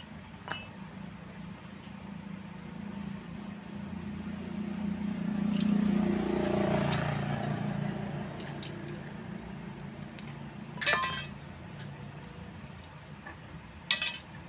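Steel spanners clinking against each other and the metal studs: a sharp ringing clink about half a second in, a quick rattle of clinks past the middle, and another near the end. A low rumble swells and fades in between.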